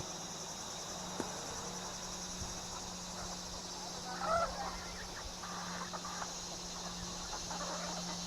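Chickens clucking a few times, loudest about four seconds in, over a steady high buzz of insects.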